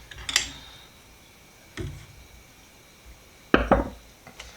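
Workshop objects being handled while a screwdriver blade is taken out of a rust-remover bath: a few separate knocks and clatters, the loudest a double knock about three and a half seconds in.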